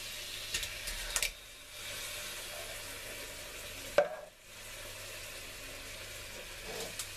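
Browned beef pieces sizzling in a pot with a steady hiss. There are a few small clicks around a second in, then a sharp click about four seconds in, after which the sizzle briefly dips.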